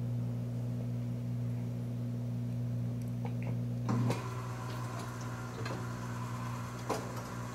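Wurlitzer 2700 jukebox's mechanism running after the record ends: a steady motor hum, joined about four seconds in by a clunk and then scattered clicks and rattles as the record changer works.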